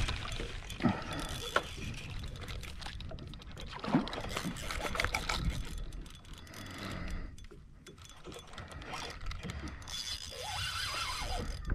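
Spinning reel working against a hooked redfish: the drag giving line and the reel being wound in uneven bursts, with scattered clicks and short whining glides, quieter about two thirds in.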